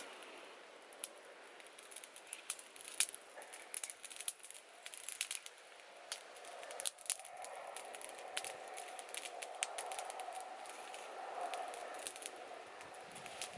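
Small wood fire crackling, with frequent sharp snaps and pops, while sticks are moved and pushed into the flames.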